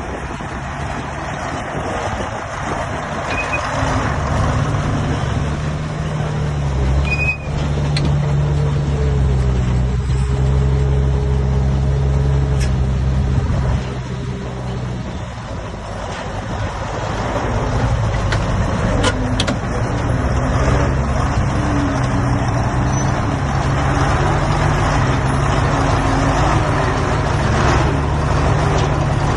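Heavy diesel earthmoving machinery, a bulldozer and dump trucks, running and working under load. The engine note rises and falls rather than idling, with a few brief sharp clicks or hisses over it.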